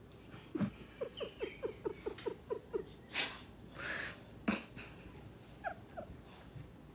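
A dog whimpering: a quick run of about eight short, high whines at roughly four a second, then a few noisy breaths, and two more short falling whines near the end.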